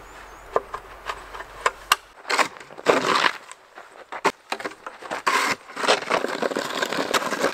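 A few separate clicks of a ratchet strap being cranked tight around a tree. Then, from about two seconds in, repeated scraping strokes as snow is cleared off the ground with a long-handled tool.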